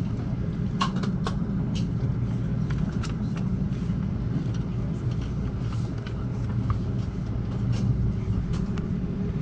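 Amtrak Cascades passenger train in motion, heard from inside the coach: a steady low rumble with scattered light clicks and knocks at irregular intervals.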